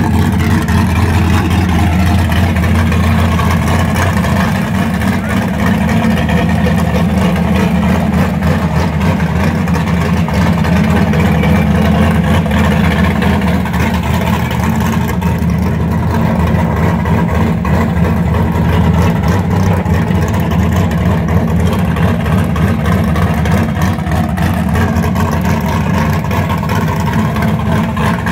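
Chevrolet Chevelle SS's V8 engine held at high revs through a long burnout, its rear tires spinning on concrete and smoking. The engine note is loud and steady, with no let-up.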